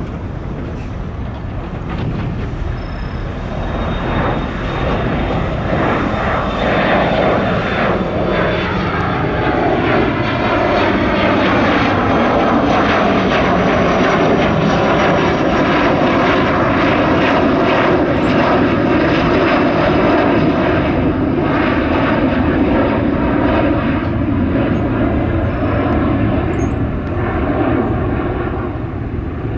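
Jet airliner's engines passing close by: a heavy rushing roar that builds over the first few seconds, is loudest through the middle and eases slightly near the end, with engine tones sliding down in pitch as it goes by.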